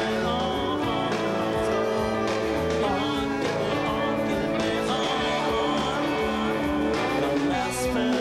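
Band music with guitar and keyboard over a steady beat, with a voice singing in places.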